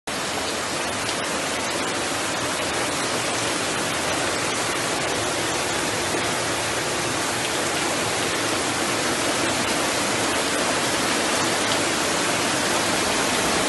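Heavy rain and floodwater rushing along a flooded street, a steady loud hiss with no let-up.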